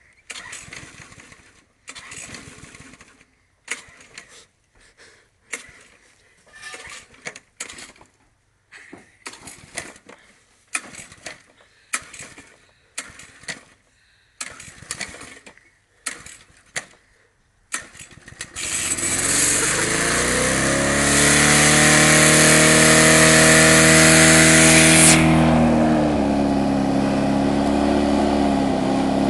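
Petrol lawn mower being pull-started, with more than a dozen short pulls of the starter cord. It catches after about eighteen seconds, runs up to speed and, for a few seconds, runs loudest and highest, then settles to a steady, slightly lower run.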